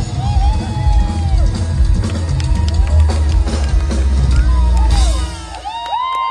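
Loud rock music with a heavy kick-drum beat, heard from within a festival crowd. It stops about five seconds in, and the crowd cheers and whoops.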